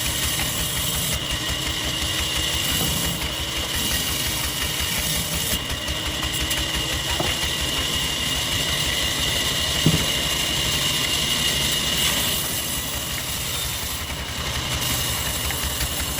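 An engine running steadily with a constant high whine above it, and one sharp knock about ten seconds in.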